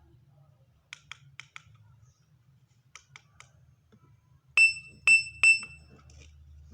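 Small plastic buttons on a mini Bluetooth speaker clicking several times in quick runs. Then the speaker gives three loud, short, high-pitched beeps about half a second apart.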